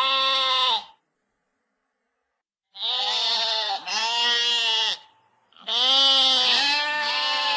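A lamb bleating: a short bleat, a pause of about two seconds, then a run of long, wavering bleats.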